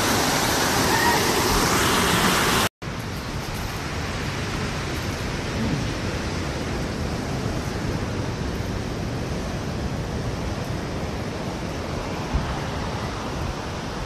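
Steady rush of a rocky stream's flowing water, which cuts off abruptly under three seconds in, followed by a quieter, even wash of ocean surf.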